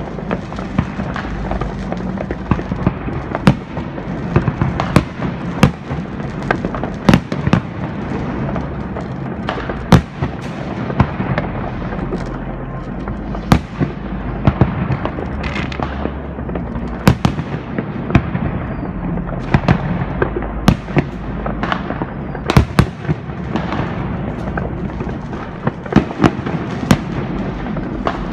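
New Year's Eve fireworks: a steady crackling din of many rockets and firecrackers, with frequent sharp bangs going off irregularly, several a second at times.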